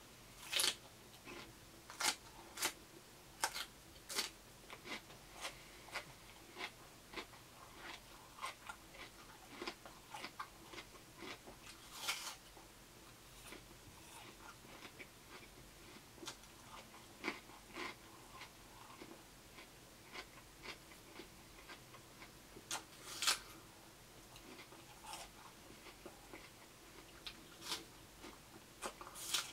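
A person biting and chewing raw fruit and vegetables close to the microphone: a string of sharp crunches about one a second. The loudest bites come near the start, about 12 seconds in and about 23 seconds in.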